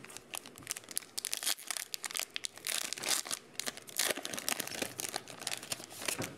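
Stack of Donruss football trading cards being flipped through in gloved hands: rapid, irregular snaps and rustling of card edges sliding against each other.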